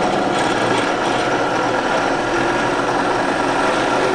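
JIB 250 16VL benchtop drill press running steadily, its motor and variable-pulley belt drive turning while the speed handle is turned to raise the spindle speed to about 2900 rpm.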